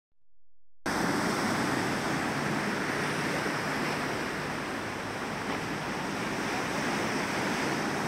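Ocean surf breaking and washing up a sandy beach, a steady rush of waves that starts abruptly just under a second in.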